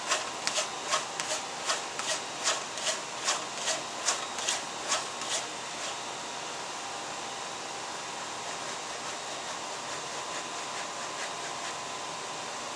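Tanned coyote hide being broken: the leg skin is pulled back and forth over the edge of a breaking tool to soften it, giving about fourteen quick scraping strokes, two or three a second, that stop about five and a half seconds in. After that only a steady background hiss remains.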